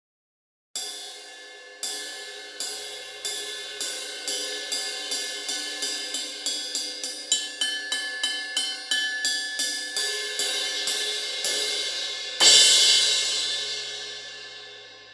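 Zildjian A Custom 18-inch crash cymbal being struck. Two single hits ring out, then the strokes come faster, up to about three a second, and thin out into a ringing wash. A single loud crash near the end is left to ring and fade.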